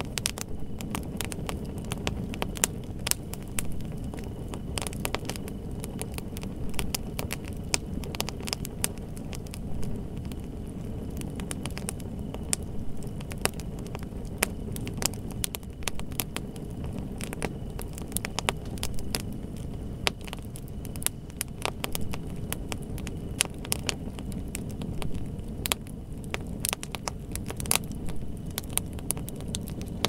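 Wood fire crackling: irregular sharp pops and snaps from the burning wood, many a second, over a steady low rumble.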